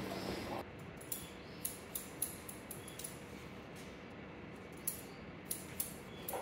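Hairdressing scissors snipping through damp hair: a run of short, crisp snips at an uneven pace, a few each second.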